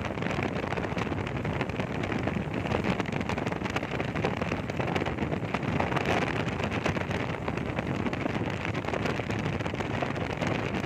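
Steady rushing wind and road noise buffeting a phone microphone on a moving vehicle, with a dense crackle throughout.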